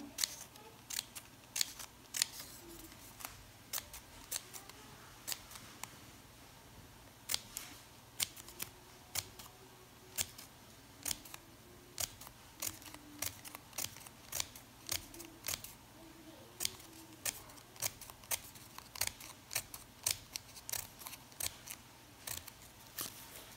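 Scissors snipping a fringe into a folded paper strip: a long series of short, sharp snips, about one or two a second, with small irregular pauses.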